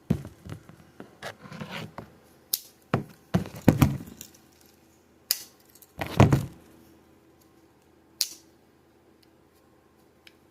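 Metal army-style folding knives being handled: irregular clicks, crisp snaps and duller knocks as their fold-out tools are worked open and the knives are moved about, a few loud knocks among softer clicks.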